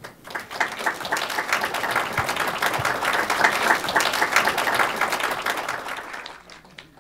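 Audience applauding, the clapping swelling over the first couple of seconds and dying away near the end.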